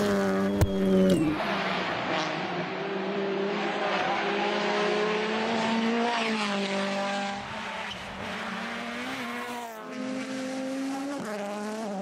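Rally cars driven flat out, their engines revving hard and the note climbing and dropping with quick gear changes, with a sharp crack about half a second in.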